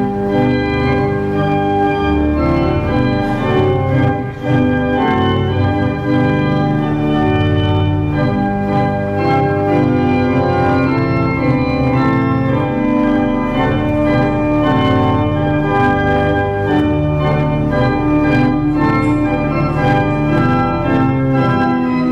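Church organ playing sustained full chords that change every second or so. It comes in abruptly right after the spoken call to worship.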